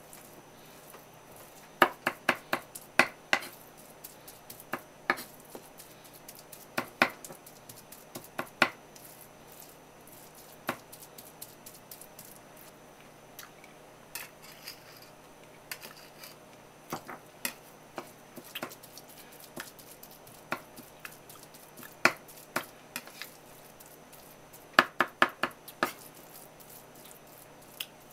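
Kitchen knife chopping and mincing raw sardine with miso and green onion on a wooden cutting board: sharp knocks of the blade on the board in irregular bursts of a few quick strokes, with pauses between.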